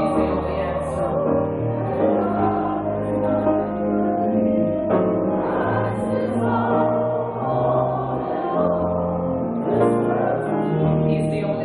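Gospel choir singing a slow hymn in long held chords over steady low sustained notes, the harmony changing every second or two.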